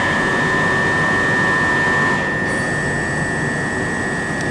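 Class 377 Electrostar electric multiple unit standing at the platform with its onboard auxiliary equipment and air conditioning running: a steady hum with a high, steady whine. A second, lower whine stops about two seconds in.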